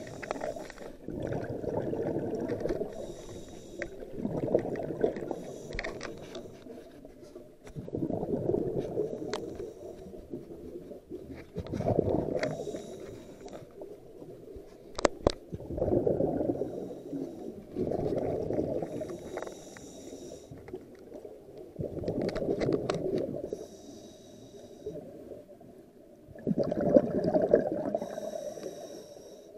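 Scuba diver breathing through a regulator underwater: each exhale sends out a burst of rumbling, gurgling bubbles about every three to four seconds, with a softer hiss of inhaling between them. A few sharp clicks stand out, the two loudest about halfway through.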